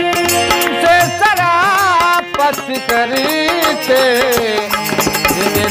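Male voice singing a Hindi film song with wavering, ornamented held notes over steady harmonium chords. A dholak drum keeps a regular beat, with small hand cymbals.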